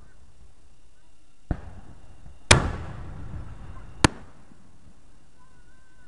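Fireworks shells bursting: a bang about a second and a half in, then the loudest boom a second later with a rumble that dies away over about a second, and a sharp crack about four seconds in.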